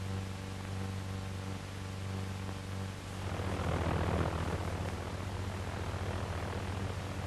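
Steady hum and hiss of an old film soundtrack, then about three seconds in the rapid pulsing buzz of a V-1 flying bomb's Argus pulsejet comes in and holds steady.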